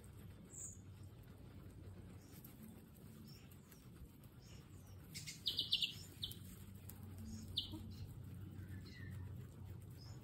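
Guinea pigs chewing fresh grass, a faint steady munching and rustling, with a few short high chirps about halfway through.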